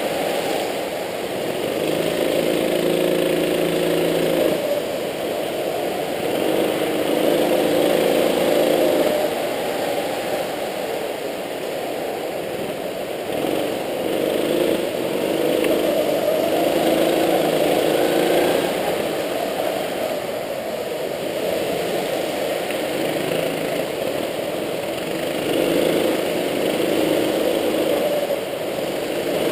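Go-kart engine heard from on board, running continuously and swelling and easing in pitch and loudness every few seconds as the kart accelerates out of corners and lifts off for the next.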